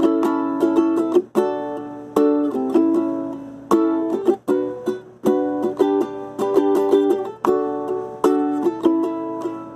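Ukulele strummed in chords, a steady rhythm of strokes that ring and decay, with short breaks where the chords change.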